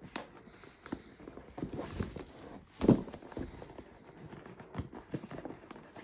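Irregular knocks, taps and rubbing of a cardboard laptop box being handled and opened, with one louder thump about three seconds in.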